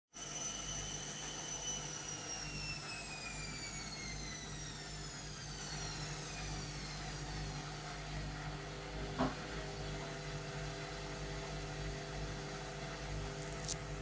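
Indesit Innex washing machine coming down from an intermediate spin: the motor's high whine falls steadily in pitch over the first seven seconds above a steady low hum. A single knock comes about nine seconds in, and a brief click near the end.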